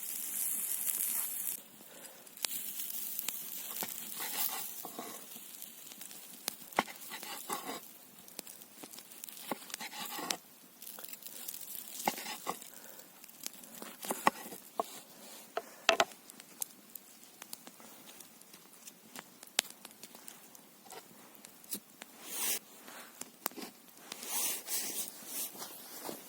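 Irregular rustling, crinkling and small sharp clicks from hands-on handling of materials, with a brief louder hiss at the start.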